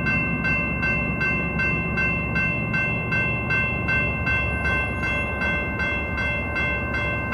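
Railroad grade crossing bell ringing at an even pace of close to three strikes a second, over the low rumble of an approaching Norfolk Southern freight train's diesel locomotives.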